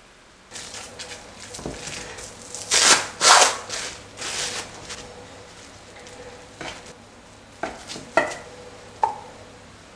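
Plastic cling wrap crinkling as it is opened around a slab of cookie dough, loudest about three seconds in. Then a metal bench scraper cuts through the dough and taps on the counter four times.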